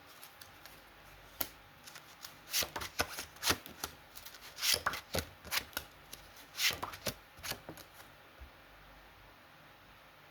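Tarot cards being shuffled and handled: several short runs of quick card flicks and rustles. It is quieter near the end.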